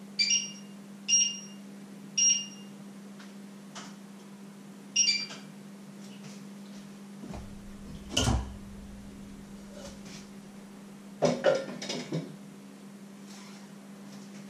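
Metal cookware being handled on a stovetop: four short ringing clinks of metal on a pot in the first five seconds, then a duller thump and a quick cluster of knocks as pots and pans are moved, over a steady low hum.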